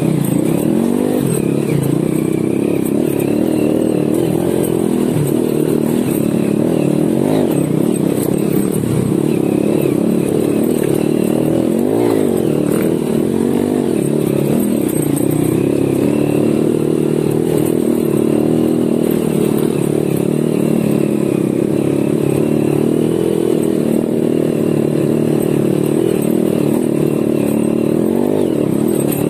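Honda Win 100 motorcycle engine running as the bike rides a rough dirt track, its revs rising and falling.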